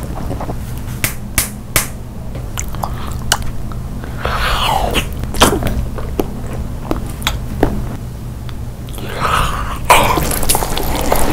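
Close-miked mukbang eating sounds: chewing with many sharp, wet mouth clicks, and about ten seconds in a bite into a whole cooked octopus, over a steady low hum.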